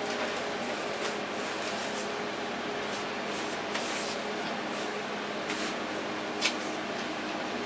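Steady hum and hiss of a kitchen appliance running, with a few light clicks and taps from handling.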